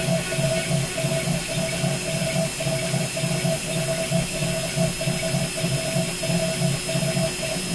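800 W spindle of a CNC 3020 router at about 20,000 rpm, its 4-flute end mill facing off round 6061 aluminium bar. It makes a steady whine with a rhythmic pulsing cutting sound over a hiss.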